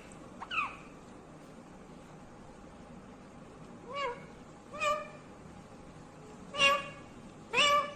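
A green Indian ringneck parakeet calling: five short, pitched calls, one near the start and then four more spread over the second half, with a quiet stretch of about three seconds in between.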